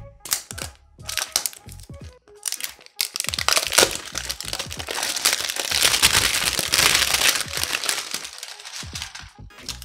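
Plastic shrink-wrap being torn and peeled off a phone's retail box: sharp crackles and crinkling, densest and loudest from about three seconds in until near the end.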